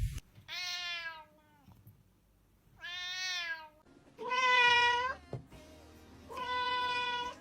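A kitten meowing four times, each meow about a second long with a pause between. The third meow is the loudest.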